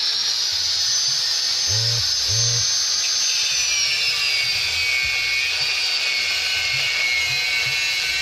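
Handheld angle grinder cutting through a motorcycle's steel rear frame: a loud, steady, high whine. Its pitch slowly drops from about three and a half seconds in as the disc is pressed into the cut.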